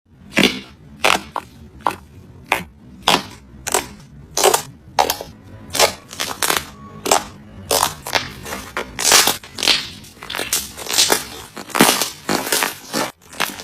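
Slime being squeezed and pressed by hand, each press giving a short crackling burst, in a steady run of roughly one every two-thirds of a second.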